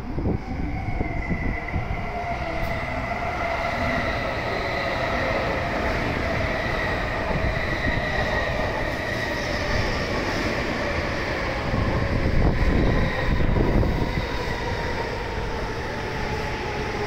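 N700S Shinkansen train pulling into the station alongside the platform, a steady rumble of the cars rolling by under an electric whine that falls slowly in pitch as the train slows to stop. It is a little louder about three quarters of the way through.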